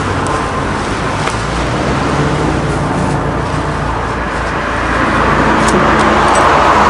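Camping stove burner running with a steady roar, growing a little louder about five seconds in.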